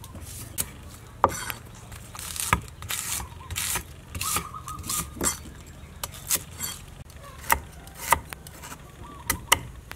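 Large kitchen knife chopping lemongrass and slicing a pale root on a thick wooden chopping block: irregular sharp knocks of the blade hitting the wood, about a dozen loud ones, with softer cutting sounds in between.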